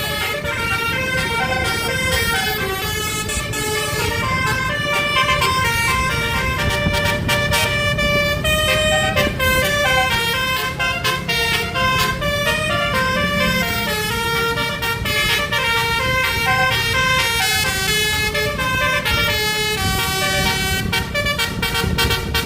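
Bus 'telolet' basuri horn, a multi-note musical horn, playing a quick tune of stepping notes without a break, over the low rumble of the bus engine.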